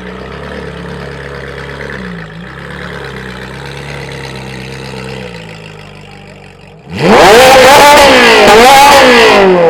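Ferrari 458's V8 with an Armytrix aftermarket exhaust idling low and steady, then revved hard about seven seconds in. The pitch climbs and falls twice, very loud, and drops away near the end.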